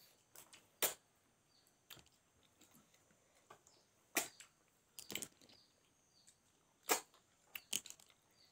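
Close-miked mouth sounds of someone eating rice and curry by hand: wet chewing and lip-smacking in short, sharp smacks about every second or two, with a few in quick succession about five seconds in and again near the end.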